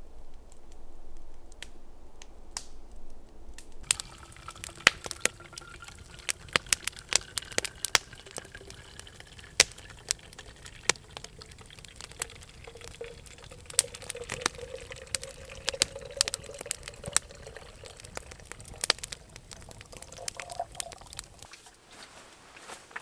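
Just-boiled water poured from a kettle into a plastic Nalgene bottle, starting about four seconds in, the pitch slowly rising as the bottle fills and stopping shortly before the end. Many sharp crackles and clicks run through it.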